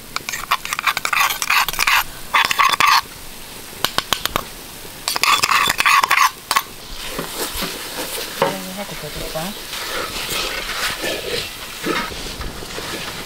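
Wooden spatula stirring and scraping a thick, sizzling banana-ghee-sugar mixture in a brass uruli, in strokes of about a second each, as roasted cashew, grated coconut and cocoa are folded in; the stirring grows fainter after about seven seconds.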